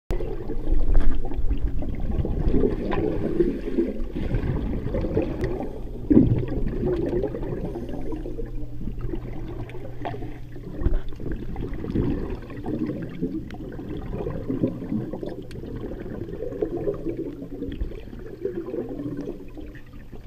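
Muffled underwater bubbling and gurgling heard through a waterproof camera housing, from a scuba diver's exhaled regulator bubbles, in irregular surges with scattered clicks.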